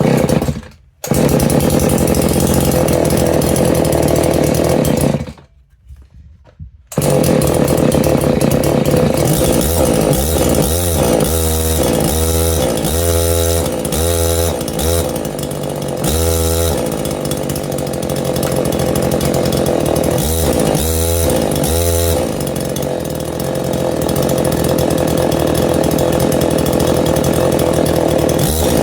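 Husqvarna 50 Rancher two-stroke chainsaw starting and cutting out twice, then running continuously with its revs repeatedly rising and falling. The owner finds that it doesn't like the fitted bar and chain.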